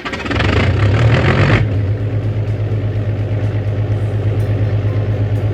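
Excavator's diesel engine: a louder, rougher burst for about the first second and a half, then it settles into a steady, low, pulsing idle.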